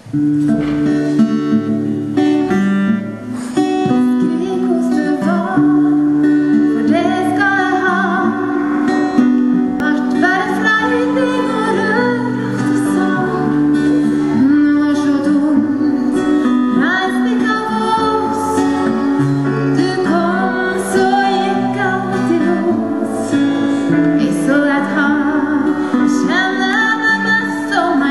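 Live band music: a woman singing a slow song, accompanied by a strummed acoustic guitar and sustained keyboard chords.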